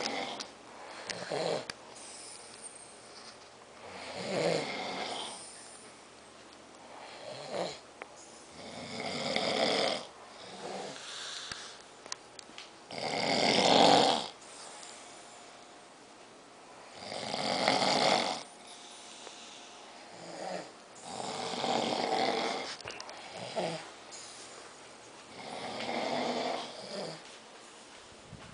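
A person snoring: about six loud snores, roughly one every four seconds, each lasting a second or two, with quieter breathing between them.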